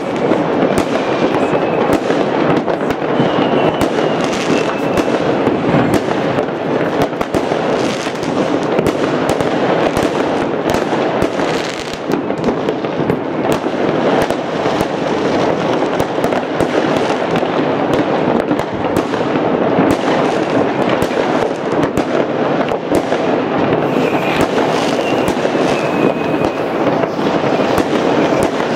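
Many fireworks and firecrackers going off at once without pause: a dense, continuous crackle of bangs and pops. A faint high whistle rises above it twice.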